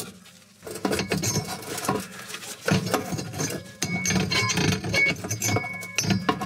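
Metal clinking, knocking and scraping as the terminal ends of a fan-oven heating element are worked back and forth through the holes in the oven's steel back panel.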